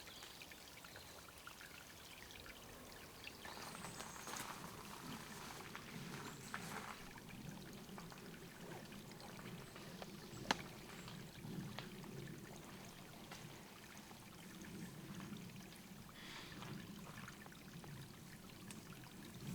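Water trickling and pouring steadily into a small forest pool, with one sharp click about ten seconds in.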